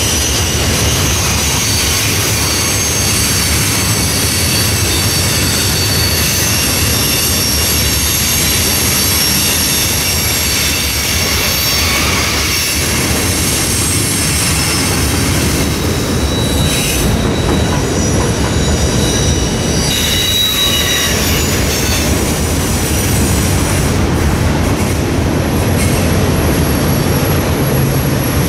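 Freight train cars rolling past: a loud, steady rumble of wheels on rail, with high-pitched wheel squeal.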